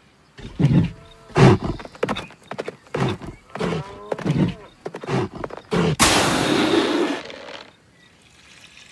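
Cartoon bull charging: a run of heavy thudding footfalls with short grunting, bellowing animal cries. About six seconds in comes a loud rushing noise lasting over a second.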